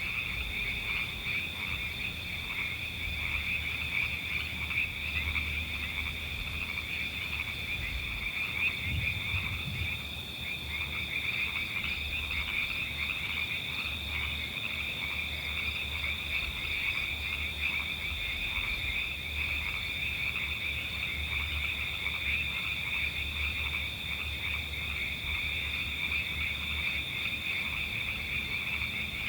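A dense chorus of frogs calling without pause: a steady high trilling from many callers, with repeated lower croaks among them.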